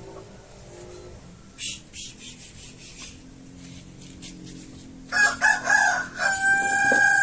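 Rooster crowing: a few short notes about five seconds in, then one long held note that drops in pitch at the end. Before it there are a few brief scratchy sounds.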